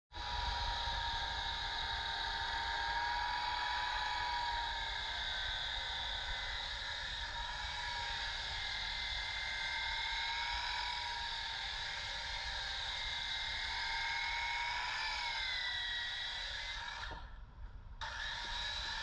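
Handheld electric wheel sander running steadily, a motor whine that wavers slightly in pitch as its wheel scrubs the burnt char off a cedar board to expose the grain. The sound briefly drops near the end.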